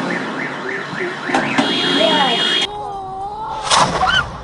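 Car alarm warbling in a fast repeating rising chirp, about four a second, joined about one and a half seconds in by a steady high alarm tone. It cuts off abruptly near the middle, and a quieter stretch with a faint voice follows.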